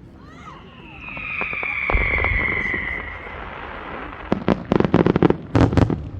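Fireworks: a high whistle that falls slightly in pitch, a low boom about two seconds in, then a quick run of sharp crackling reports near the end.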